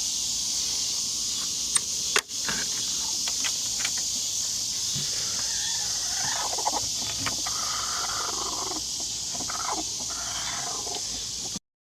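Steady high-pitched chorus of crickets and other insects, with a few sharp clicks about two seconds in. Soft clucking from chickens in the coop comes in the second half, and everything cuts off suddenly near the end.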